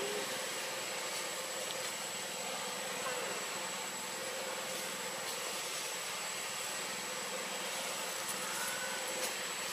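Steady outdoor background hum and hiss with a thin, constant high tone and no distinct events, apart from two faint short rising squeaks, one right at the start and one near the end.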